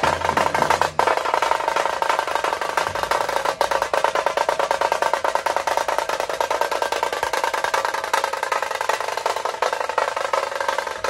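Tasha drums of a dhol-tasha troupe playing a fast, dense, unbroken roll, loud and steady, with the deeper dhols barely heard beneath.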